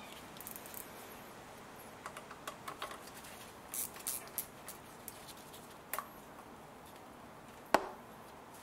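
Gloved hands working among hoses and plastic fittings in a car engine bay: scattered light clicks and rustles, with one sharp click near the end.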